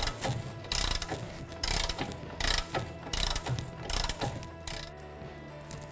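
Half-inch socket wrench on the 18 mm lower rear shock mounting bolt, clicking in short repeated strokes about twice a second, then stopping near the end. The bolt turns but stays in place, seized by rust inside the shock's bushing.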